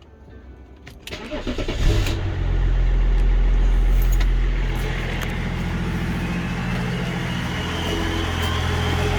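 BMW E39 Touring engine cranked over on the starter for about a second, catching about two seconds in. It runs at raised revs briefly, then settles to a steady idle. It starts and runs on a newly fitted fuel pump that appears to have cured its fuel-supply problem.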